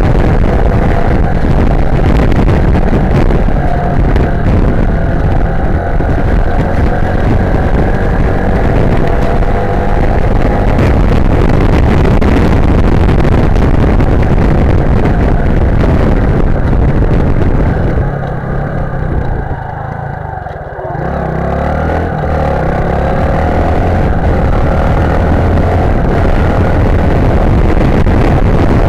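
Sym Wolf 150's single-cylinder engine running under way, with heavy wind rush on the microphone. About eighteen seconds in, the engine and wind fall off for a few seconds as the throttle closes, then the engine pulls away again, rising in pitch.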